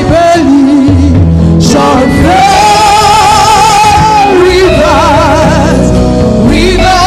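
Gospel worship music: singing with wide vibrato on long held notes over steady, sustained bass notes.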